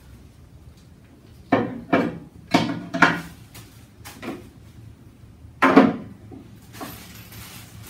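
Loose parts of an electric stand grill being handled and set down: a quick run of four sharp knocks and clatters, then a smaller one and a last loud knock.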